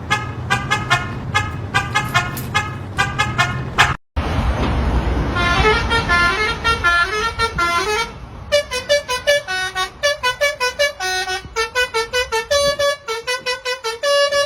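Musical vehicle horns honking out tunes in rapid short notes that step up and down in pitch, with an engine rumble underneath during the first half. The sound cuts out briefly about four seconds in, then another horn tune follows.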